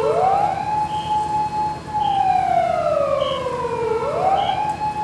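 Japanese fire engine siren wailing: each cycle climbs quickly, holds high for over a second, then slides slowly down, repeating about every four seconds. A fainter, higher siren overlaps it.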